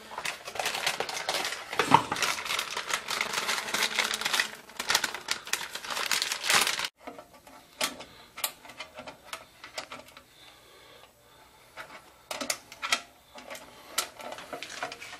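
Clicking, rattling handling noise as a replacement furnace control board and its wiring are fitted into the furnace's sheet-metal cabinet: a dense run of clicks and rustles for about the first seven seconds, then scattered single clicks and taps.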